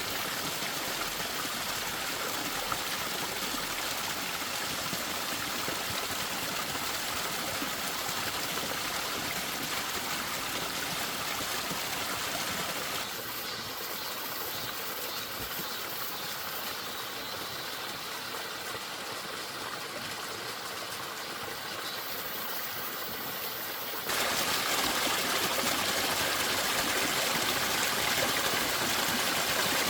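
Mountain stream water rushing steadily over rocks. The sound drops abruptly about thirteen seconds in and comes back louder about twenty-four seconds in.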